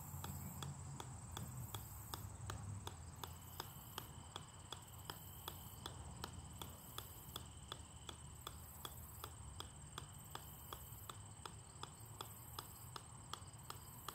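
A golf ball bouncing on the steel head of an 8-pound sledgehammer: light, sharp ticks in an even rhythm, about two a second.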